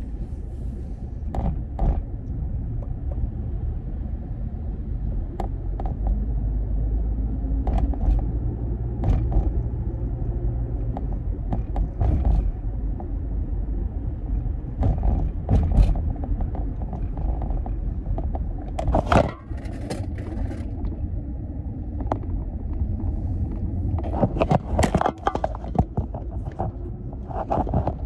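Steady low road and engine rumble inside the cabin of a moving 2012 Toyota RAV4, with scattered short clicks and knocks that cluster near the end.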